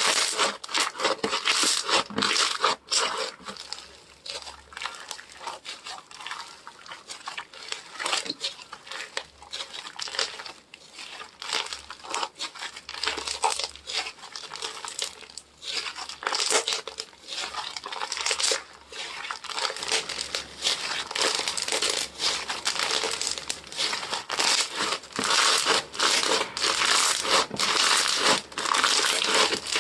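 Slime being squeezed and stretched by hand, giving a dense, continuous crackling of small pops and clicks.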